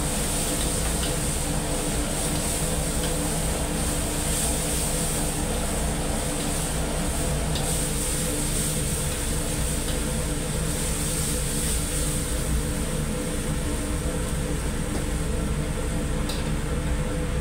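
Steady loud machine drone of a commercial wok stove and kitchen ventilation, a low hum with hiss over it, and a few faint clicks of a metal spatula against the wok.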